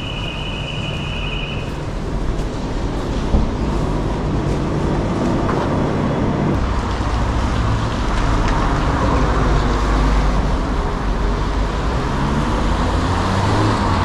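Road traffic: motor vehicles running past on a town street, slowly growing louder, with a steady high beep during the first couple of seconds.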